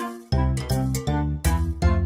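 Upbeat children's cartoon music: a quick jingle of notes changing several times a second over a strong bass.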